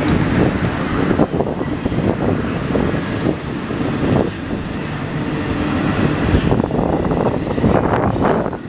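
Double-stack intermodal freight cars rolling past: a steady rumble of steel wheels on rail with repeated clacks over the rail joints. A faint high wheel squeal comes in briefly twice in the second half.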